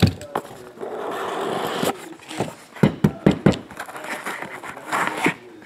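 A cardboard trading-card box being opened by hand. About a second in there is a scrape of just over a second as the lid slides off, then several short clicks and knocks as a plastic-cased card is handled in its foam insert.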